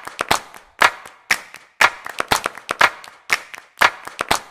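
Rhythmic hand claps in a percussive backing track, with a strong clap about twice a second and lighter hits in between.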